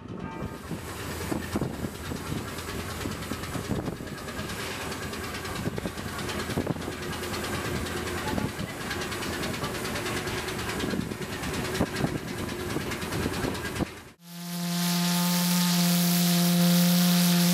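A boat's hot-bulb engine thudding irregularly under wind and water noise, then about 14 seconds in the steam whistle of the 1910 coal-fired steam tug S.S. Styrbjörn opens up suddenly with a loud, steady, low-pitched blast and a hiss of steam, still sounding at the end.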